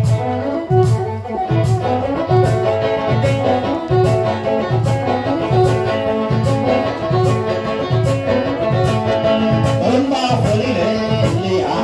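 Live Ethiopian traditional band music: a steady drum beat a little more than once a second under a bowed-string melody and plucked strings, with a wavering sung voice near the end.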